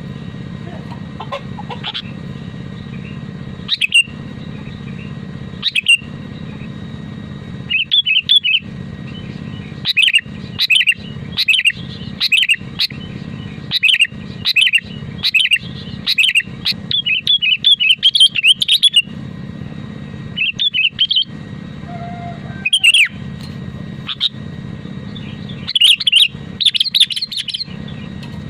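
Sooty-headed bulbul (kutilang) singing actively: bursts of short, bright chirping phrases come in clusters with pauses between them, over a steady low background hum.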